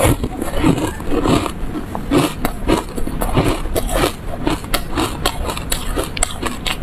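Close-miked chewing of yellow foam ice: a dense, irregular run of crisp crunches, several a second, as the frozen foam breaks up between the teeth.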